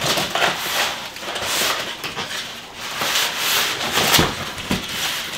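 Cardboard box flaps and white foam packing inserts scraping and rustling as a packed baby product is slid up out of its shipping box, with a couple of knocks about four seconds in.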